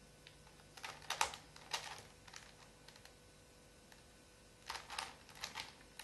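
Plastic 3x3 Rubik's Cube layers being turned quickly by hand: rapid clicking and rattling of the cube's turning layers in two quick flurries, the first about a second in and the second near the end.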